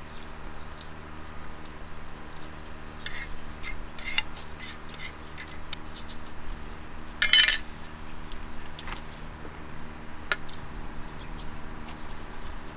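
Metal utensil clicking and knocking against a black camping griddle pan as food is eaten off it, a scattering of light clicks with one louder, harsh half-second noise about seven seconds in.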